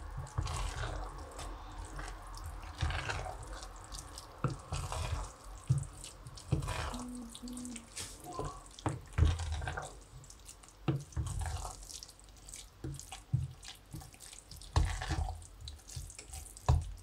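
Wooden spoon stirring moist rice with peas and carrots in a stainless-steel pot: wet scraping with irregular knocks of the spoon against the pot.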